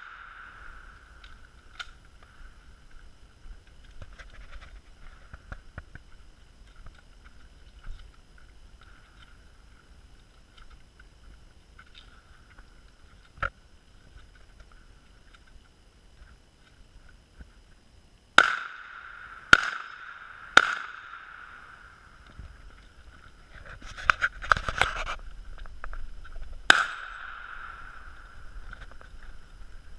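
Gunshots from a competitor's firearm: a single shot about 13 seconds in, then a string of shots from about 18 seconds in. Three come singly, then a quick cluster, then one more, each with a short ringing echo.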